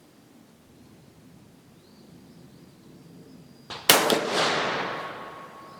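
A single shot from a Dutch Beaumont 11 mm rifle, preceded by a short click, with the report echoing and dying away over about a second and a half.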